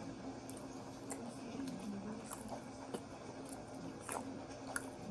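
Close-miked chewing and wet, squishy mouth sounds from eating, with scattered soft clicks.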